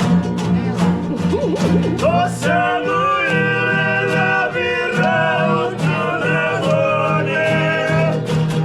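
Music: a singing voice holding long, wavering notes over guitar and a steady beat.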